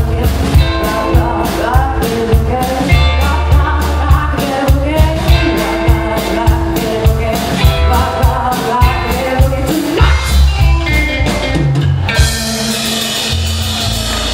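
Live rockabilly band playing: hollow-body electric guitar, upright double bass and drum kit on a steady beat, with a woman singing. About twelve seconds in the drums stop and the band holds a final chord that rings out as the song ends.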